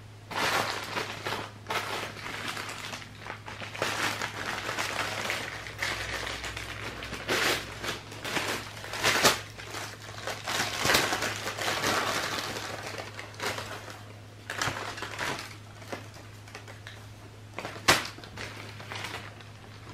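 Crinkling and rustling from something being handled by hand, with a sharp click about nine seconds in and a louder one near the end, over a steady low hum.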